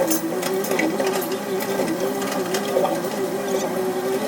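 Caterpillar 320C hydraulic excavator working: a steady mechanical hum whose pitch dips briefly over and over as it takes load, with scattered clicks and knocks.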